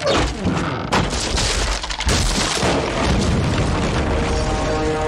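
Cartoon sound effects of a large wooden structure collapsing: booming crashes and a rumble, with heavy impacts about a second apart. Music plays underneath, and a held musical chord comes in near the end.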